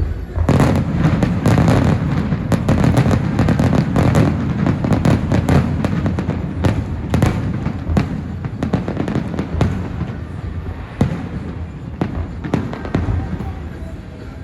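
Aerial fireworks: a dense barrage of deep booms and rapid crackling pops that starts about half a second in and thins out toward the end.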